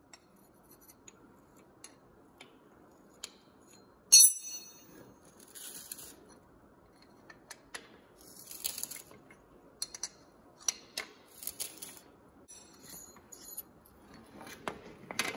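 Steel coilover spanner wrenches and coilover parts being handled: a sharp, ringing metal clank about four seconds in, then scattered clicks, clinks and scraping of metal on metal.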